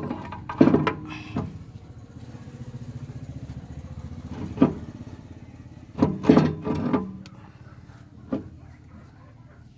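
An engine running for a few seconds with a rapid, even pulse, mixed with several sharp knocks.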